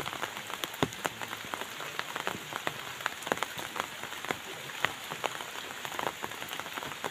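Rain falling, with many irregular drop ticks close to the microphone over a steady hiss.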